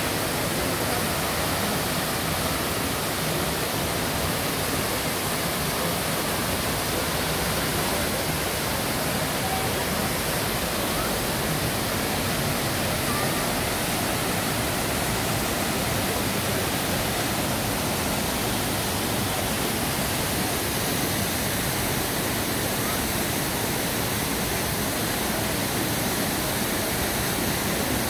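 Water pouring over Düden Waterfall, a steady, unbroken rush.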